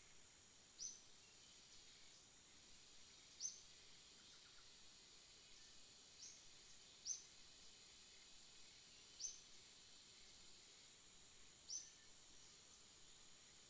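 A bird's short, high chirp repeated about six times, every two to three seconds, over a steady high insect hiss.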